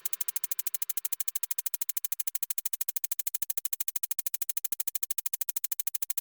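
Electronic background music: a fast, even pulsing synthesizer buzz of about a dozen pulses a second, mostly high in pitch.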